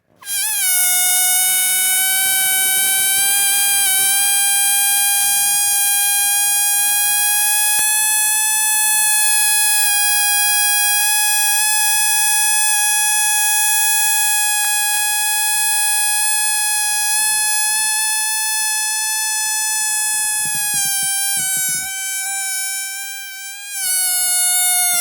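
Rubber balloon deflating through its neck stretched to a pinch, giving a loud, steady, high-pitched squeal that wavers slightly in pitch. Near the end it falters and breaks briefly, then resumes a little lower as the air runs out.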